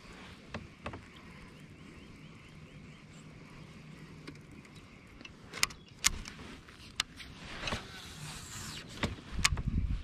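Light clicks and knocks of fishing tackle being handled in a plastic kayak, with a baitcasting reel being wound and clicking faintly.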